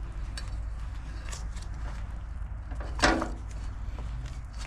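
Handling noises of a silicone intercooler coupler being worked onto a metal intercooler pipe: small knocks and rubbing, with one short louder sound about three seconds in, over a steady low hum.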